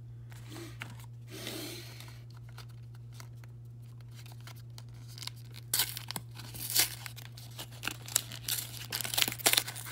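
Pokémon booster pack's foil wrapper being handled and torn open: soft rustling at first, then a run of sharp crinkling crackles from about six seconds in. A steady low hum sits underneath.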